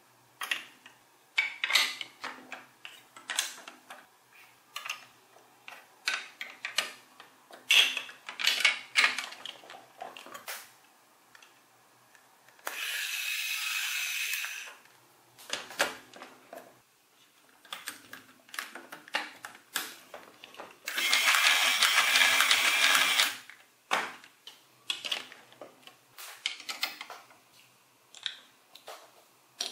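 Large plastic building blocks clicked and snapped together by hand, a string of short sharp clicks and knocks. Twice, a little before halfway and again about two-thirds through, a small toy electric motor block whirs steadily for about two seconds.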